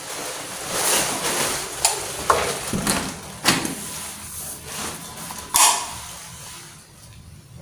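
Wooden interior door being pushed open and handled: several sharp clicks and knocks over rustling, the loudest knock about five and a half seconds in.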